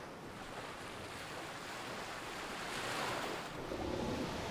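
Ocean surf washing onto a sandy shore, a steady rush of breaking waves that grows a little louder and fuller near the end.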